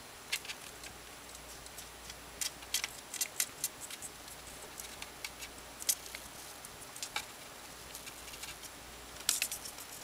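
Sugar glider's claws clicking and scrabbling on a slippery bookshelf as it clambers along the shelf edge: irregular sharp little ticks, some in quick clusters.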